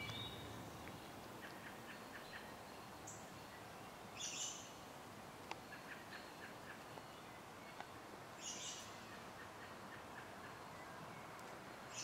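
Faint outdoor ambience with distant bird calls: two short high-pitched calls about four seconds apart, with faint chirping between them.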